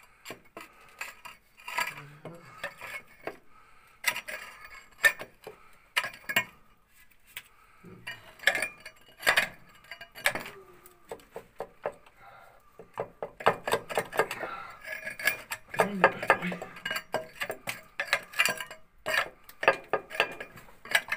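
Pickaxe striking and chipping at a quartz seam in a rock wall: irregular metallic clinks and knocks of steel on stone, thinning out for a few seconds around the middle.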